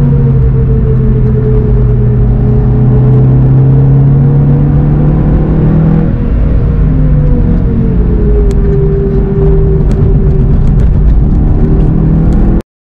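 VW Golf 7 GTI TCR's turbocharged 2.0-litre four-cylinder engine, heard from inside the cabin, running under load at a fairly steady pitch that dips slightly about halfway and eases down later. The sound cuts off abruptly just before the end.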